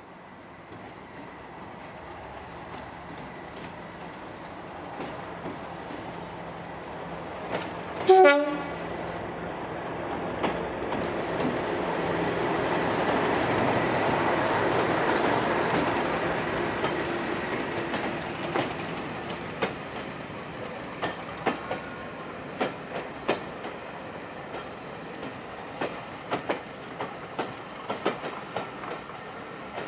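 Diesel locomotive approaching and passing close by with its train. It gives one short horn blast about eight seconds in, and its engine is loudest as it goes past. The coaches then roll by with a steady clickety-clack of wheels over the rail joints.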